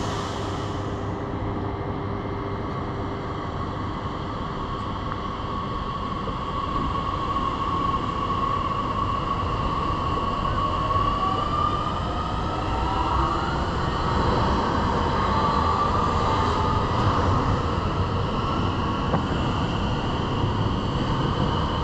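Double-deck electric multiple unit (Regio 2N type) running past, a steady rail rumble with a whine from its traction motors that bends in pitch about halfway through and grows slightly louder.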